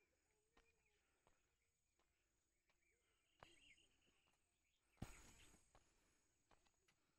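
Near silence: faint outdoor hillside ambience with a few soft clicks and one short thump about five seconds in.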